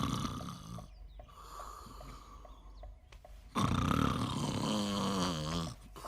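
A man snoring loudly in long breaths. The first snore fades within the first second. A louder one about halfway through rattles and falls in pitch, and another begins at the very end.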